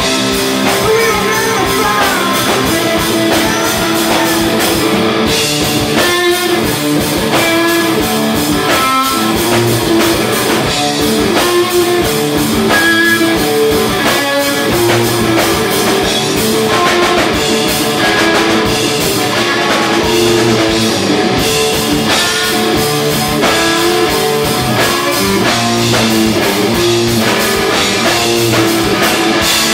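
Live blues-rock band playing an instrumental passage: electric guitar riffing on repeated notes over a drum kit, with no vocals.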